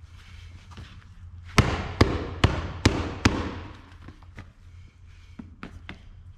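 A stiff new kip-leather baseball glove being pounded during break-in: about a second and a half in, five sharp, evenly spaced whacks come two to three a second, then lighter scattered knocks near the end.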